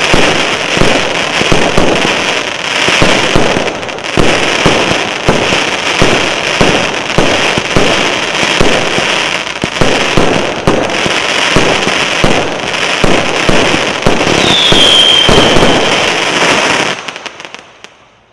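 Fireworks cake (Krutoy SP0810001 salute battery) firing a dense, continuous barrage of bangs and crackling, with a short falling whistle about three-quarters of the way through. The firing dies away near the end.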